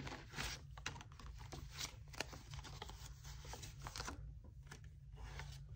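Paper banknotes being handled: faint, irregular rustles, flicks and crinkles as a stack of bills is pulled from a clear plastic binder envelope and shuffled in the hands, over a low steady hum.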